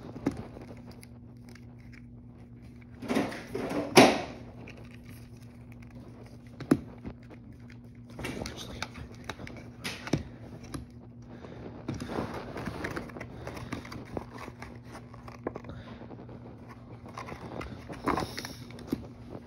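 Plastic toy walkie-talkies being handled and checked for batteries: scattered clicks and rustling, with a sharp plastic knock about four seconds in and several louder scraping bursts later. A faint steady low hum runs underneath.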